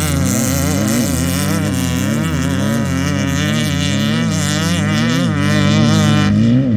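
Off-road race vehicle's engine revving up and down over and over, its pitch rising and falling about once a second, growing a little louder near the end.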